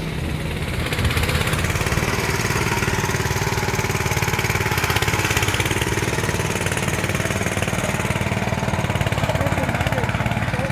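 Small engine on a homemade walk-behind farm sprayer running steadily with a fast, even firing beat.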